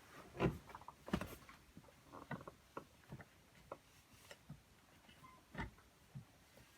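Irregular clicks and knocks of metal hardware and tools being handled while a seatbelt anchor bolt is fitted. The loudest knocks come about half a second in, about a second in, and again about five and a half seconds in.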